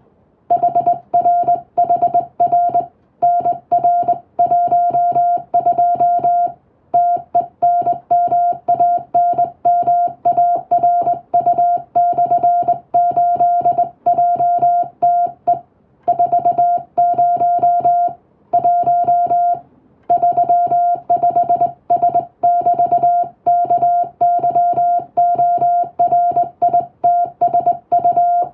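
Morse code (CW) signal: a single steady tone keyed on and off in rapid dots and dashes, with brief pauses between words.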